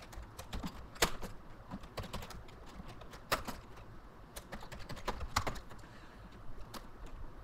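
Typing on a computer keyboard: irregular keystroke clicks, a few of them louder.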